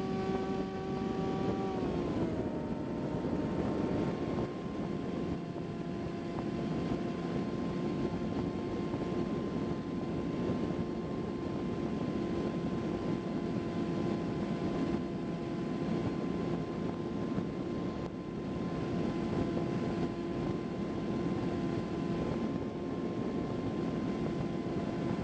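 Electric motor and pusher propeller of a Bix3 RC trainer plane running in flight, a steady whine that drops a little in pitch about two seconds in as the motor slows, then holds. A constant rush of air runs underneath.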